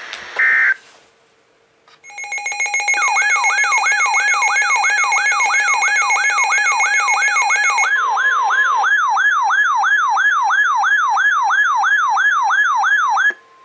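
Electronic alert siren: a synthetic falling whoop repeating about three times a second over steady high tones, cutting off suddenly near the end. A short beep comes just before it.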